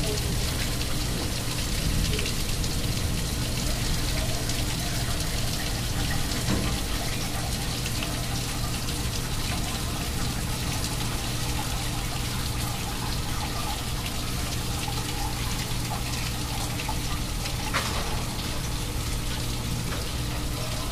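Heavy thunderstorm rain pouring down steadily, an even hiss of downpour with a low steady hum beneath it.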